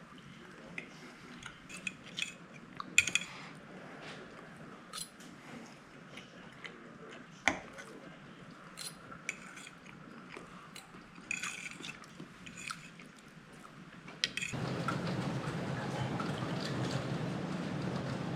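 Eating sounds from a meal of cooked brook trout: scattered small clicks, taps and bites. About fourteen seconds in, a steady rushing noise starts suddenly and continues.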